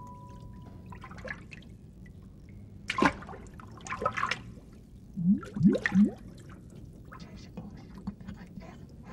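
Sparse wet sound effects: a few squelchy clicks, then three quick rising plinks like water drops about five to six seconds in. A held musical note fades out at the very start.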